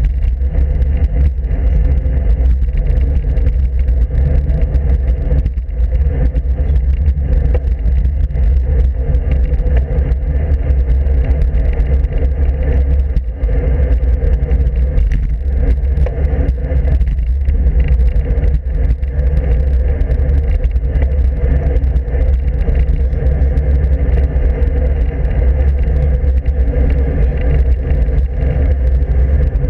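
Steady, loud, deep rumble of wind buffeting and road vibration picked up by a handlebar-mounted camera on a road bike riding along.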